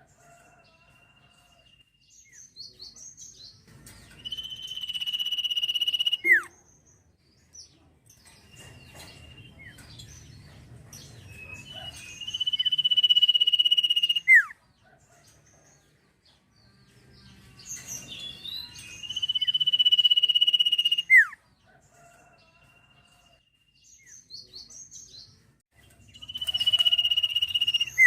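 Sirtu songbird singing: four long, steady, high whistles about two seconds each, each ending in a quick falling note, repeated roughly every seven seconds with soft chirps between.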